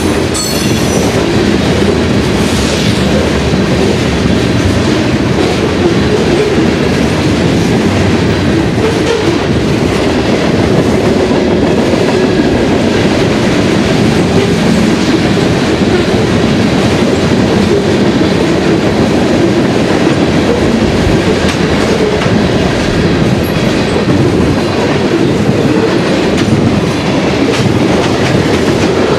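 Loud, steady rumble and clatter of a freight train's covered hopper and tank cars rolling past close by, steel wheels running on the rails.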